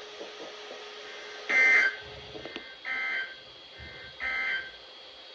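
Emergency Alert System end-of-message data bursts: three short two-tone digital squawks, about 1.3 seconds apart, the first the loudest. They signal the end of the alert message.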